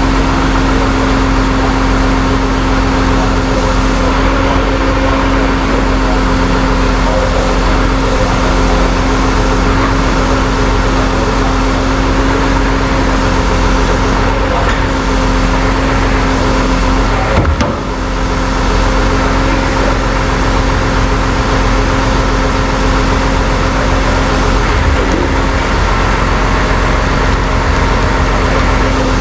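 Tow truck engine running steadily with a constant hum. A single knock comes about seventeen seconds in.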